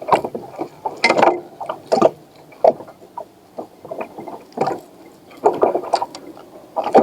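Irregular splashes and knocks around a small plastic fishing boat, coming about once a second, as a fish is brought in.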